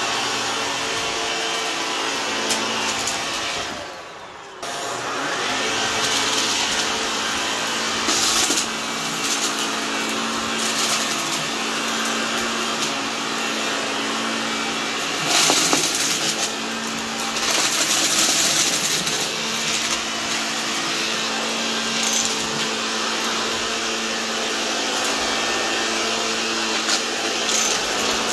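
Shark Lift-Away upright vacuum running over carpet with a steady motor whine, briefly dropping away about four seconds in and coming back abruptly. Several loud crackling bursts, around eight seconds in and again twice later, as small debris is sucked up and crunches through the nozzle.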